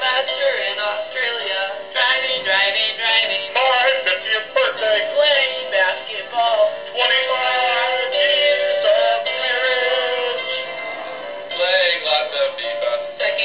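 A greeting-card sound chip playing a Christmas song with singing through its small speaker. The sound is thin, with little bass.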